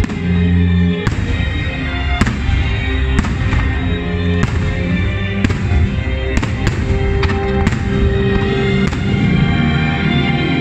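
Fireworks shells bursting with sharp bangs, roughly one a second and a few in quicker succession around the middle, over music with held notes playing throughout.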